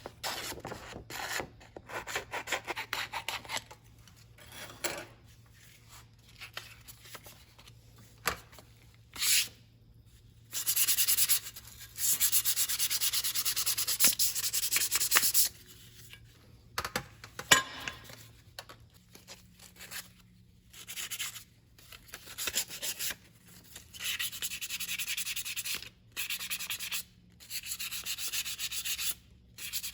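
Hand sanding: fast back-and-forth strokes of sandpaper over a hard surface, in runs of a few seconds with short pauses between them, and the longest run in the middle.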